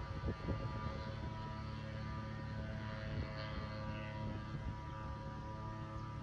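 Faint, steady drone of the departed Schleicher ASW24E motor glider's engine, distant and out of sight, over low wind rumble on the microphone.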